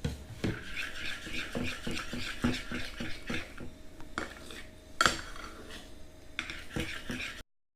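A utensil stirring slime mix in a bowl, knocking and scraping against it about two to three times a second, with one louder knock about five seconds in: the glue and shaving-foam mixture being worked as boric acid water is added to activate it. The sound cuts off suddenly near the end.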